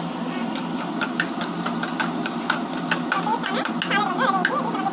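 Spatula stirring vegetables in a non-stick pan: quick clicks and scrapes against the pan over a steady low hum, with light sizzling.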